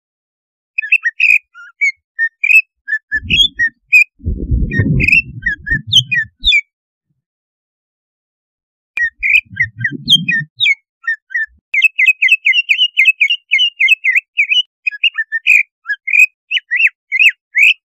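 Cucak ijo (green leafbird) singing a fast, scolding run of sharp whistled chirps. This is an agitated song of the kind used to rouse a caged cucak ijo into fighting mood. The chirps pause for a couple of seconds about the middle and come back denser toward the end, with a lower rough noise under them twice.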